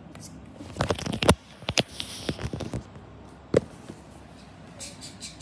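Small plastic toys being handled and knocked together: scattered clicks and knocks, a cluster about a second in and a sharp single knock about three and a half seconds in.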